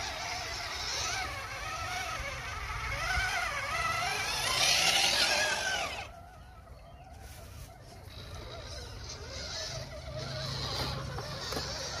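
Electric drive motors and gearboxes of RC scale crawler trucks whining, the pitch wavering up and down with the throttle, while they splash through a shallow stream. The splashing is loudest about five seconds in. The sound drops suddenly about six seconds in, and the whine builds again as a WPL D12 Suzuki Carry pickup crawls up through the water.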